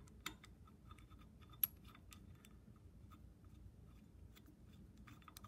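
Faint metal clicks and light scraping as a small metal handle is fitted and threaded onto the stud of a compound table's handwheel, with one sharper click a little over a second and a half in.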